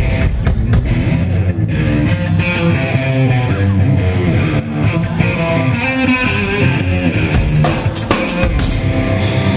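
Rock band playing live and loud: electric guitar, bass and drum kit.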